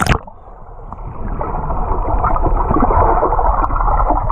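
A splash as a child jumps into a swimming pool, then the sound turns muffled as the camera goes underwater: a dense underwater bubbling and rushing of churned water that builds over the next couple of seconds.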